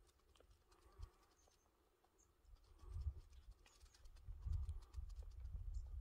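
Wind gusting across the microphone on an exposed mountain ridge, a low rumble that comes in gusts, picking up about three seconds in and holding from the middle on, with faint scattered ticks.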